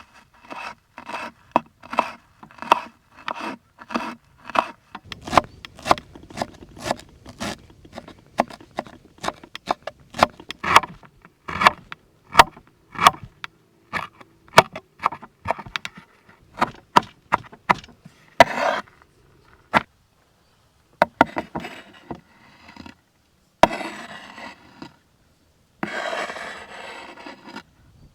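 Repeated sharp chopping strokes on wood, slow at first and then quicker, about two a second, followed by several longer scrapes, each a second or two long.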